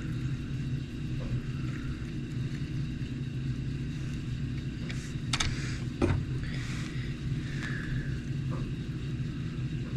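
Steady low hum in the background, with a few small clicks and taps of tools and parts being handled, the sharpest about six seconds in.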